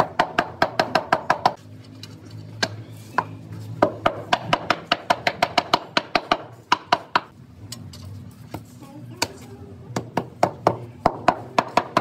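Rubber mallet tapping a ceramic floor tile to bed it into fresh tile adhesive, in quick runs of blows about five a second. The runs come at the start, from about four to seven seconds in, and near the end, with short pauses between.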